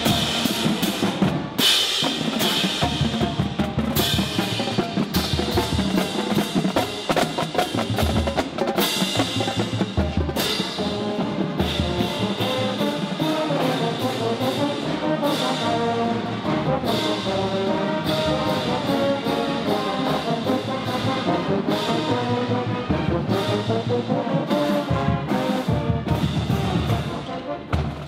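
Marching band playing: a drumline of tenor drums, drums and crash cymbals beats out a fast steady rhythm. Trombones, sousaphones and other brass play the tune over it.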